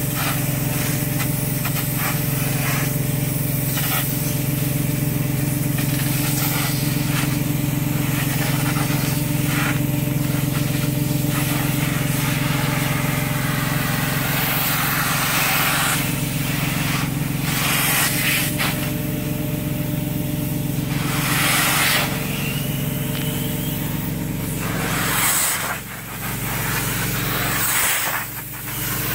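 A truck-mounted carpet cleaner's vacuum runs steadily through the hose, while a handheld upholstery tool sprays and extracts on the fabric in repeated strokes, its hiss swelling and fading with each pass. The sound dips briefly twice near the end.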